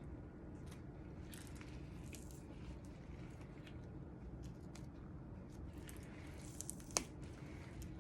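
Faint wet squishing and small crackles of hide being pulled and worked off a partly frozen wolf foot, with one sharp click about seven seconds in.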